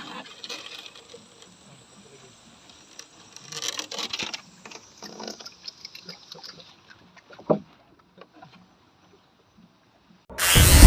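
Faint small splashes, knocks and handling clicks around a small boat on the water, with one sharper knock about seven and a half seconds in. Near the end a very loud, noisy sound starts abruptly.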